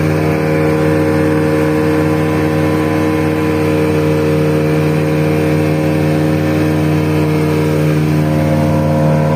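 A fishing boat's engine running steadily with the boat under way, over the rush of water and wind; its pitch shifts slightly near the end.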